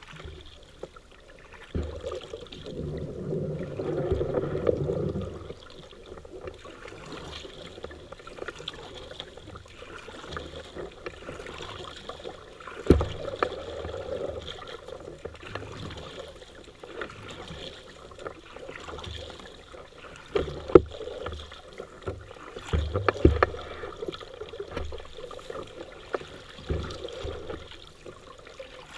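Paddling a small boat on a river: water swishing and trickling with the strokes, louder for a few seconds near the start, with a few sharp knocks scattered through.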